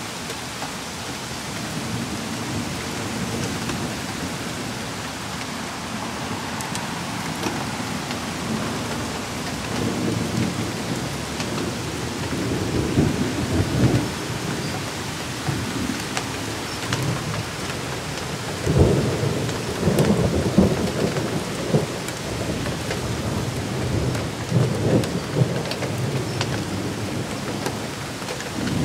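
Steady heavy rain falling on pavement and foliage, with scattered drop clicks. Low rumbles of thunder swell up several times in the second half.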